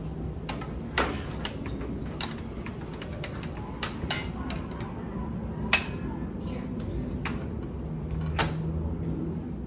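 Steady rain with irregular sharp ticks of raindrops landing on the window ledge and laundry poles, a dozen or so taps at uneven spacing, the loudest just before six seconds in.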